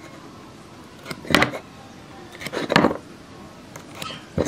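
Aluminium speed square and wooden blocks knocking and clinking on a workbench as they are set in place for marking: three short knocks roughly a second and a half apart.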